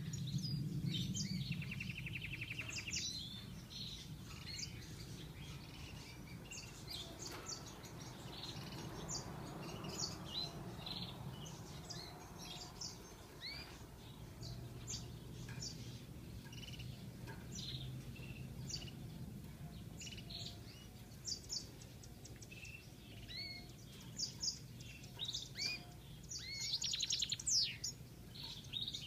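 European goldfinch singing: a long run of quick, high twittering notes broken by buzzy trills, one about two seconds in and a denser, rapid burst near the end. A steady low rumble lies underneath.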